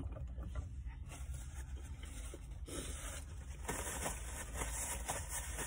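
Paper fast-food bag rustling and crinkling as it is handled, busiest in the second half, over a low steady hum.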